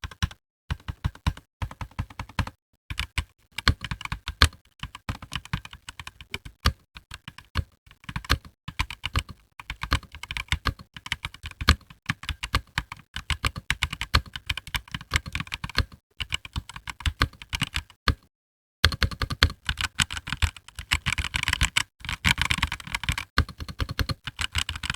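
Typing test on a Gamen Titan Elite mechanical keyboard with linear red switches and ABS keycaps: a fast, irregular run of key clacks, pausing briefly about three-quarters of the way through. The case has no dampening foam inside.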